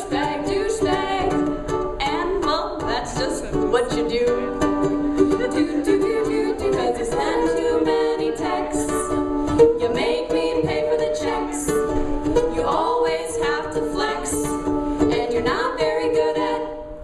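Music: a song played on a plucked string instrument, with singing.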